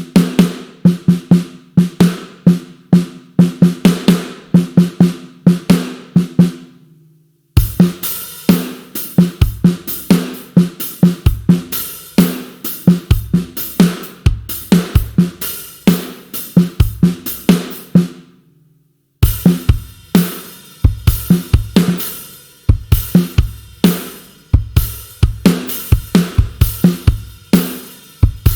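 Sampled rock drum kit from the GetGood Drums One Kit Wonder Aggressive Rock Kontakt library playing demo patterns. The first few seconds are a run of evenly spaced pitched drum hits with little kick. After a brief stop about 7 s in, full-kit grooves follow, with bass drum, snare and cymbals, and a second short stop around 19 s.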